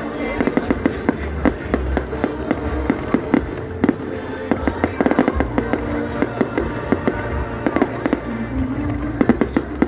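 Fireworks going off in rapid succession: dense, irregular sharp cracks and bangs, several a second, with music playing underneath.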